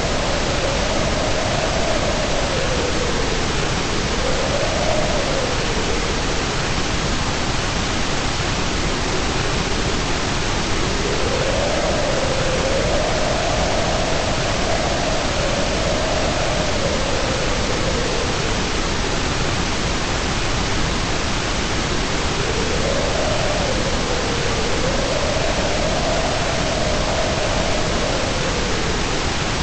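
Steady white noise, an even hiss with no change in level. Underneath it a faint tone slowly rises and falls in three long swells.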